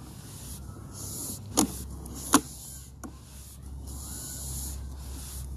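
Sewer inspection camera equipment running with a steady low hum and high hiss, and three sharp clicks as the push rod and camera head move through the pipe.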